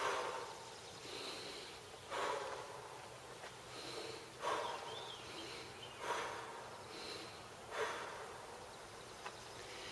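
A woman doing diaphragmatic breathing: she breathes in through the nose and exhales forcefully through the mouth, five breaths at about one every two seconds.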